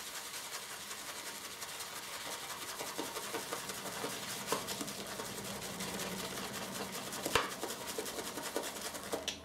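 Damp shaving brush swirled over a puck of Haslinger sage shaving soap in a bowl to load it: a steady wet, scratchy rubbing of bristles on soap, with one sharp click about seven seconds in.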